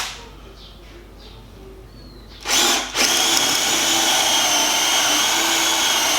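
Bosch Professional 12 V cordless drill driver boring an 8 mm hole in wood. A short burst comes about two and a half seconds in, then the motor runs steadily at an even pitch from about three seconds in, coping without bogging down.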